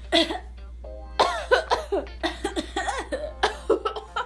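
A person coughing in a fit of many short, quick coughs, from smoking, over background music.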